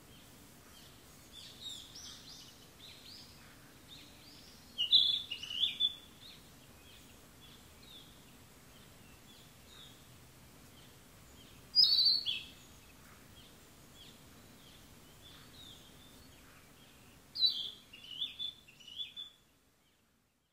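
Small birds singing and chirping over a faint steady background noise: scattered quiet high chirps, with three louder bursts of song about five seconds in, at twelve seconds, and from about seventeen to nineteen seconds. The sound cuts off just before the end.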